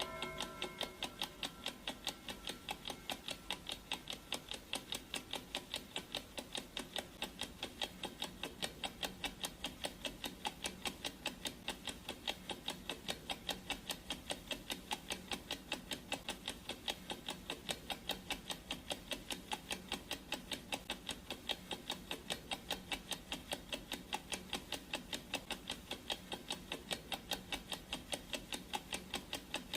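Clock ticking sound effect, an even tick-tock of about three ticks a second. In the first second a ringing tone from a struck sound just before fades out.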